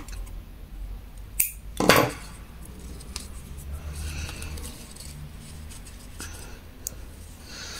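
Small scissors snipping off a loose tail of crochet yarn: two short, sharp snips close together about a second and a half in, then quiet handling.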